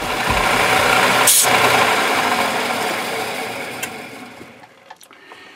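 Metal lathe running, with a brief hissing scrape about a second in. Its noise then fades away over the last couple of seconds as the chuck spins down.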